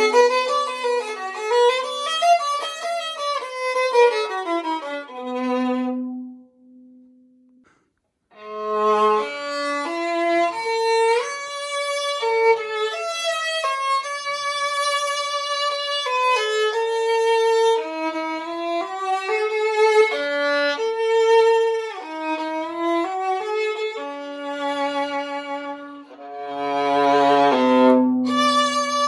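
Antique 15.5-inch viola labelled Antonius Stradivarius, played solo with a bow. A quick run of notes breaks off about six seconds in for a brief pause, then a melodic passage follows, with low double-stopped notes near the end.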